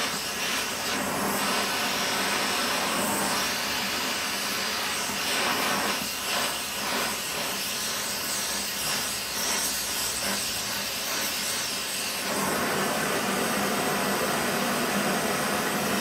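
Oxy-fuel gas torch flame hissing steadily, set to a neutral flame and heating a cracked cast iron wheel for brazing.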